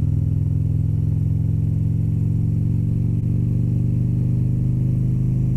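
Harley-Davidson motorcycle's V-twin engine running steadily as the bike is ridden at road speed.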